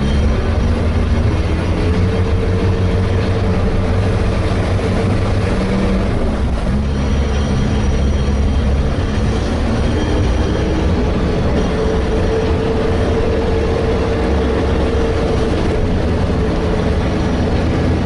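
Sherp amphibious ATV's diesel engine running steadily under load, a deep continuous drone, with a higher steady whine that comes in for a few seconds twice.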